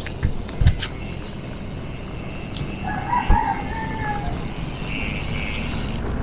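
A rooster crowing once, about three seconds in, over steady wind and road noise from a moving bicycle. A few sharp clicks come in the first second.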